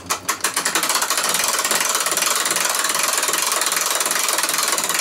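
Clock mainspring winder's ratchet clicking rapidly as a loop-end mainspring is let down. A few separate clicks speed up within the first second into a fast, steady rattle as the spring's tension runs out.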